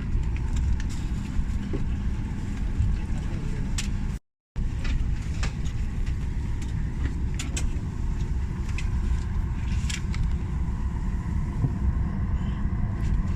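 Steady low rumble of a vehicle in motion, heard from inside, with scattered small clicks and rattles; it drops out briefly about four seconds in.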